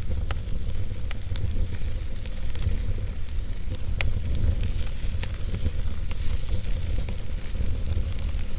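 Fire burning in a fireplace: a steady low rumble with scattered sharp crackles and pops.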